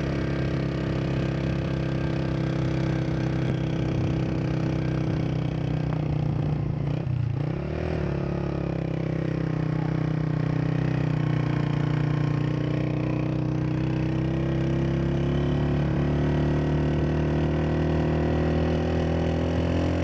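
Motorcycle engine running under way; its pitch dips sharply about seven seconds in, then climbs slowly as it pulls along.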